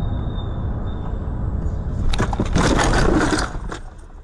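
Car road and engine rumble, then about two seconds in a loud scraping crash lasting over a second as a car's body grinds along another car's side in a sideswipe collision.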